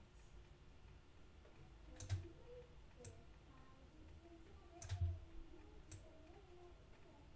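Four computer mouse clicks over faint room tone, spread unevenly over about four seconds, the third the loudest.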